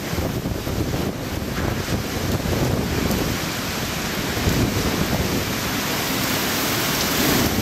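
Extreme typhoon eyewall winds with torrential driving rain: a dense, gusting rush of wind and rain that swells to a stronger gust near the end.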